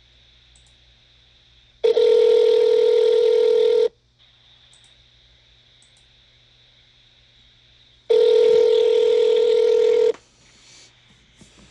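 Telephone ringback tone heard over a recorded phone line: two steady rings, each about two seconds long and some four seconds apart, the sign that the called number is ringing and not yet answered.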